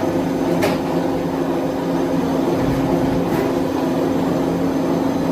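Steady machinery drone with a constant low hum, broken twice by a short hiss, about a second in and again about three seconds later.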